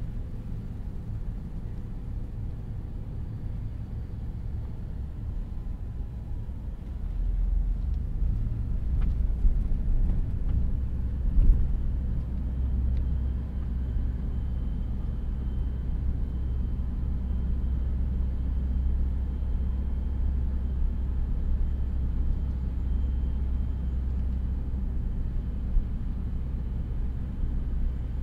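Car driving along a road: a steady low rumble of engine and tyre noise. It grows louder about seven seconds in, with a couple of brief knocks a few seconds later.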